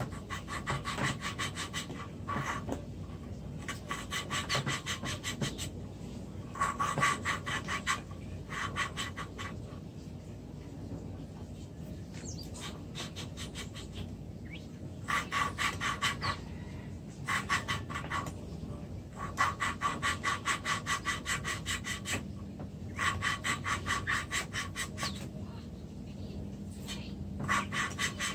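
Valve being lapped into its seat in a Cavalier Z24 2.4 cylinder head: a rubber suction-cup lapping stick turned back and forth by hand grinds the valve face against the seat with gritty lapping compound, in spells of rapid rasping strokes a few seconds long with short pauses between. The grinding noise lasts until the valve has seated; once it stops making noise, the valve is done.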